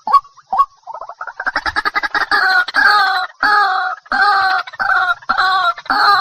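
White-breasted waterhen calling: two single sharp notes, then from about a second in a fast run of notes that builds into loud, harsh croaks repeated nearly twice a second.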